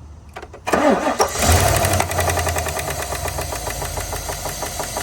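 Chevrolet Suburban pushrod V8 cranking and catching about a second in, then running with the valve cover off and a rapid, even tapping from the valvetrain. The knock comes from misfiring cylinder 7, where a bent exhaust pushrod was striking.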